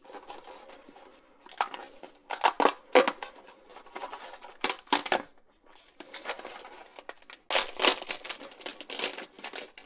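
Cardboard snack box being torn open in short rips, then a plastic inner pouch crinkling and tearing open, loudest and densest near the end.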